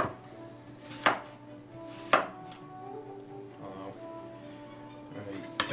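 Kitchen knife chopping through food onto a cutting board: three sharp strikes about a second apart, then two quicker, lighter knocks near the end.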